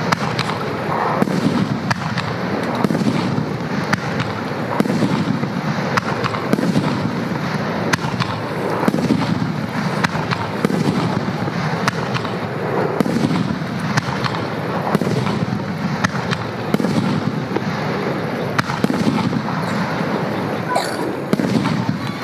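Aerial fireworks shells bursting one after another, with many sharp bangs and crackles over deep rumbling swells that come about every two seconds.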